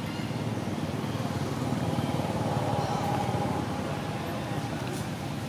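A motor vehicle's engine running at a distance, swelling to a peak about halfway through and then easing off, like a vehicle passing by, over a steady low rumble.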